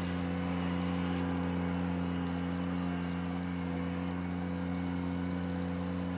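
Ventrac 4500 compact tractor's engine running steadily while it drives a power rake through loose, tilled soil. A high thin whine keeps breaking off and coming back over the engine.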